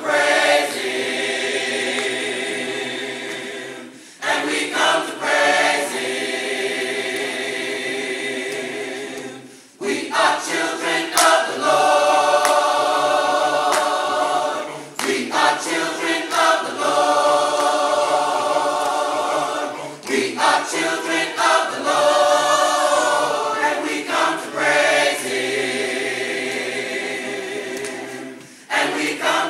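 Gospel choir singing long held chords in full harmony, phrase after phrase, with brief pauses for breath about every five seconds.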